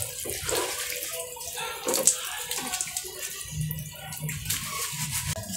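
Water from a garden hose splashing over a wet dog and running onto a concrete floor.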